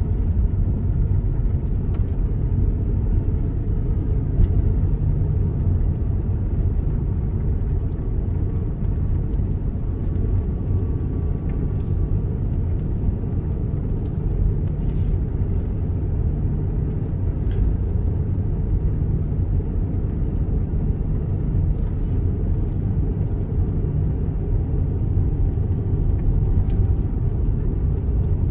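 Car driving, heard from inside the cabin: steady low road and engine rumble with a few faint clicks.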